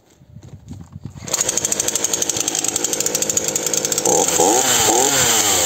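Titan TTL759CHN 40cc two-stroke petrol chainsaw starting about a second in and running, already warm from a minute's earlier run, so it catches on half a pull. Its revs rise and fall a few times near the end.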